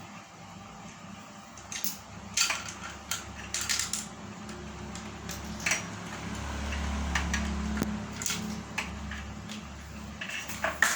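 Metal parts of a feed-pellet grinder clinking and knocking as they are handled, in irregular sharp clanks, with a low rumble swelling from about six to nine seconds in.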